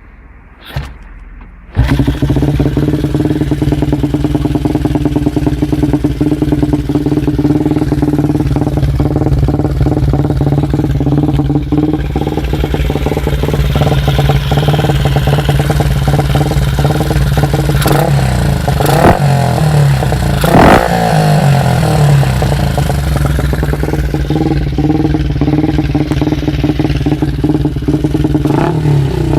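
Honda Monkey's 88cc four-valve single with a Yoshimura carburettor starting about two seconds in, then idling steadily. It gets a few quick throttle blips a little past the middle and another near the end.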